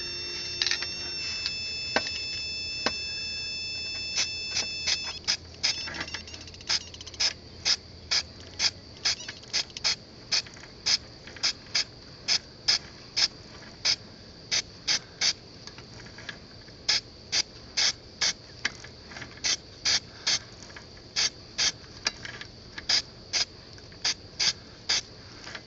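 Aerosol spray-paint can sprayed in short bursts, about two a second, onto a welded chain-drive sprocket and shaft. A steady high whine sounds for the first five seconds.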